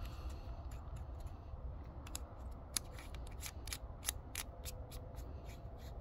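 Irregular small, sharp metallic clicks and scraping as the tailcap is screwed back onto the body of a Streamlight ProTac 90X flashlight, several clicks a second at times.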